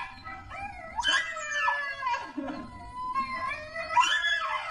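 Shiba Inu screaming while its nails are trimmed: a series of drawn-out, wavering cries that bend up and down in pitch. Played back slowed to 0.8× speed, so the cries are lower and longer than in life.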